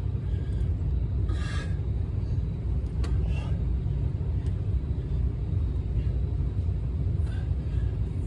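Steady low rumble, with a few brief rustling or tearing sounds on top, the loudest about a second and a half in.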